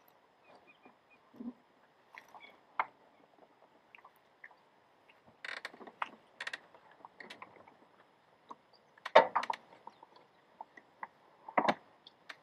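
Ratchet tie-down strap being worked and tightened: scattered clicks and knocks, with runs of quick clicks a little past halfway, the loudest just after the middle and another near the end.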